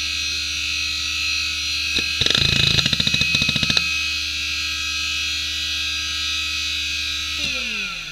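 Samsung WN310820A 4500 rpm hard drive with a Nidec spindle motor, running with a steady high whine. About two seconds in there is a click and then a second and a half of rapid head-seek clicking as the drive finishes starting up, after which it idles on the whine alone. Near the end the whine falls in pitch as the drive begins to spin down.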